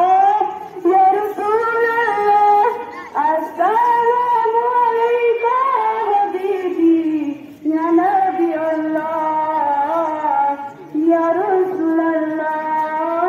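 A single voice singing a slow melody in long held notes, with brief pauses between phrases about halfway through and again near the end.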